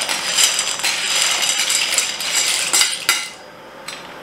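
Dry penne pasta poured from a bowl into a steel pot of boiling water, the pieces rattling and clinking, stopping suddenly about three seconds in. Near the end a steel ladle clinks once against the pot as it stirs.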